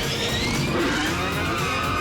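Cartoon background music with vehicle sound effects laid over it: sweeping whooshes and engine noise as the characters' cars speed off.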